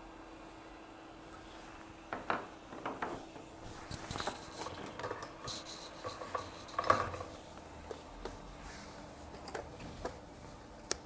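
Small metal tools tapping, clicking and scraping in irregular strokes, loudest about seven seconds in, over a faint steady hum.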